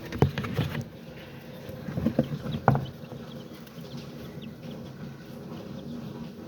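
Young chicks peeping faintly and repeatedly, with a few short knocks, the loudest near the start and about two and a half seconds in.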